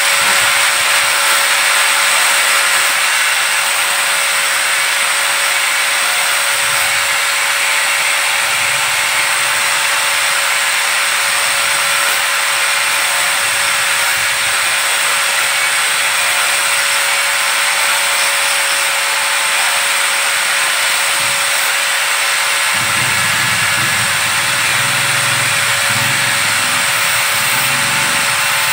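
Electric angle grinder with a sanding disc running steadily against an orange plastic pipe, a constant motor whine over a hiss. About 23 s in, a lower rumble joins as the pipe is pressed and turned differently against the disc.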